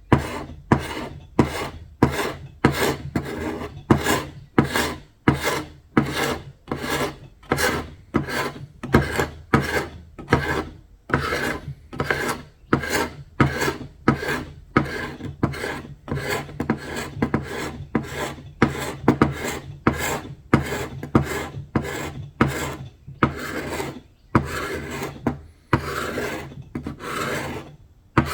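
Hand strokes of an abrasive tool working old paint and finish off a surface, rasping back and forth at about two strokes a second. Near the end the strokes become slower and longer.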